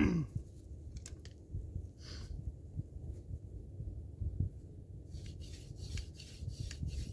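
Hand-drill spindle being twisted back and forth between the palms against a chaga mushroom hearth. It makes a rhythmic scratchy rubbing of about five strokes a second that starts about five seconds in, heard over a low rumble.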